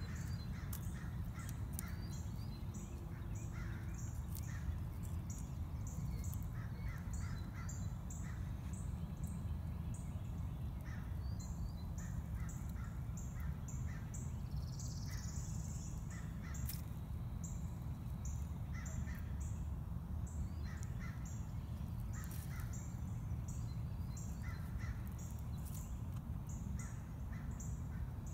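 Birds calling in the background: groups of short calls, and a high chirp repeating about twice a second, over a steady low rumble.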